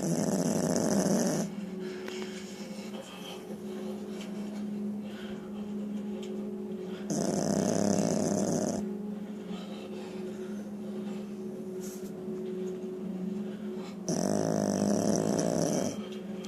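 A sleeping dog snoring: three loud, rasping snores about seven seconds apart, with quieter breathing between them.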